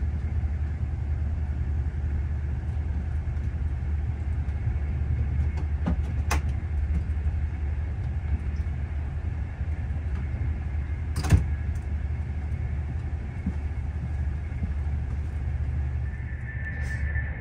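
Steady low rumble of a VR InterCity train running at speed, heard from inside the carriage. A faint click about six seconds in and a single sharp knock about eleven seconds in.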